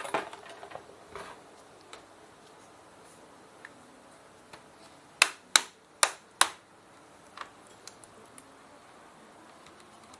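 Plastic clips of a laptop's keyboard top case snapping loose as it is pried open by hand: four sharp clicks in quick succession about five to six and a half seconds in, among a few faint ticks and handling noise.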